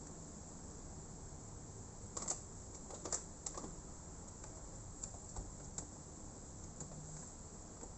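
Scattered light clicks and taps, a few close together about two to three and a half seconds in and single ones later.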